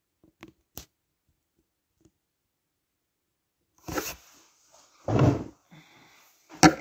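Handling noise from a smartphone being moved and adjusted: a few light clicks, then a knock, a heavier thud and a sharp click near the end.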